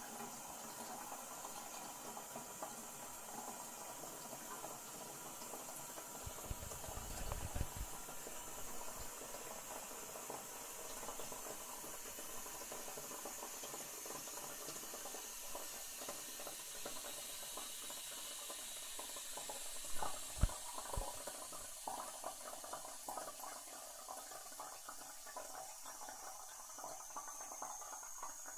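Toilet cistern refilling after a flush: water hissing steadily through the fill valve. A low rumble comes about six seconds in and two sharp knocks about twenty seconds in, and near the end a high whistling tone rises in pitch.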